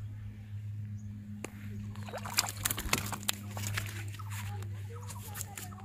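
A hooked fish splashing in shallow water at the bank, a scatter of sharp splashes and clicks through the middle seconds, over a steady low hum.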